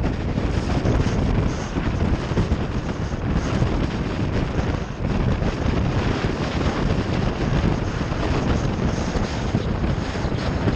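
Wind rushing and buffeting over the microphone of a moving motorcycle, with road and engine noise from the bike underneath.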